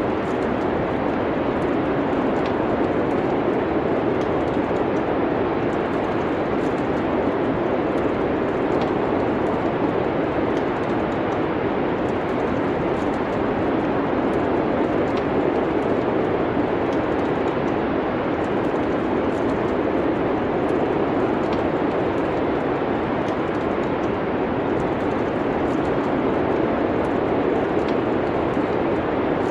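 Steady, even rushing of wind in a winter storm, with faint, scattered crackles from a wood fire in a fireplace.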